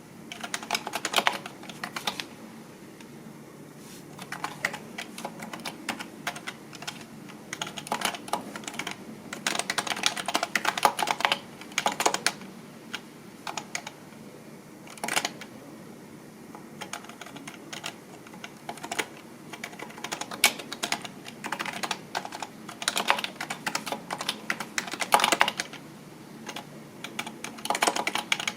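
Typing on a computer keyboard: quick runs of key clicks lasting a second or two, broken by short pauses.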